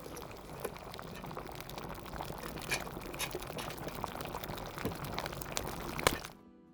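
Cooking sound effect of bubbling, crackling liquid, with many small pops throughout and one sharp click about six seconds in. It cuts off suddenly just before the end.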